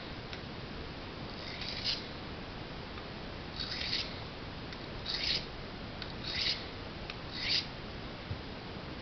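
Knife blade drawn across a whetstone in five short scraping strokes, a little over a second apart.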